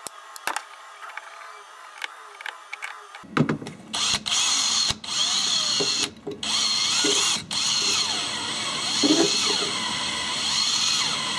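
Makita cordless drill spinning a 3D-printed helix looper mechanism. It starts about three seconds in after a few small handling clicks, stops briefly two or three times, then runs on steadily with a wavering whine as a hand presses down on the mechanism to load it.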